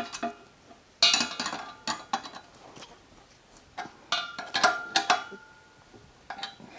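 Steel bolts, washers and a wrench clinking and tapping against the steel frame of a mower lift as bolts are fitted and nuts put on by hand. The sound comes as several short bursts of ringing metal clinks, with a quieter gap about three seconds in.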